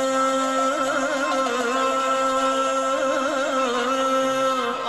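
Arabic song performed live with orchestra: a male singer draws out a long, wavering, ornamented note over the orchestra's held chord.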